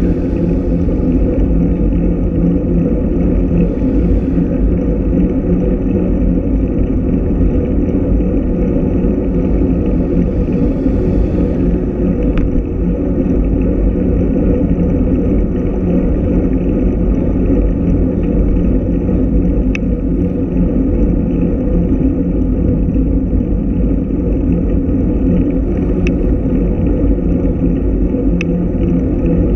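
Steady, loud rumble of wind and road vibration on a bicycle-mounted camera riding at speed on asphalt, with a few faint clicks.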